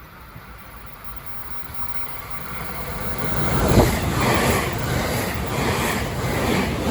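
Rushing noise of a fast-moving vehicle, growing steadily louder over about four seconds and then holding.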